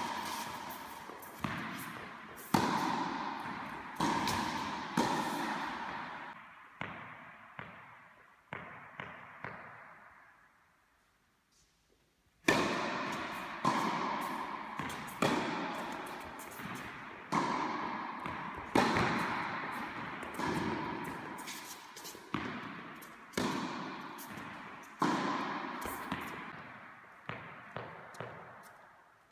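Tennis rally: racket strikes and ball bounces about every second or so, each echoing in a large indoor tennis hall. The hits stop about ten seconds in and a new rally starts about two seconds later.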